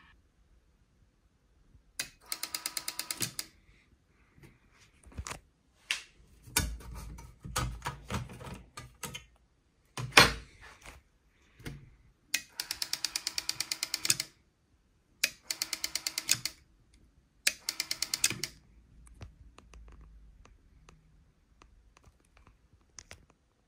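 Bursts of rapid, evenly spaced mechanical clicking, four times, each lasting one to two seconds. Scattered knocks and handling noises come between them, with one sharp knock about ten seconds in.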